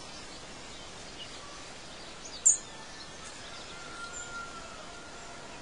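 Outdoor ambience of steady background noise with birds calling. A single sharp, loud high chirp comes about two and a half seconds in, and fainter drawn-out calls follow later.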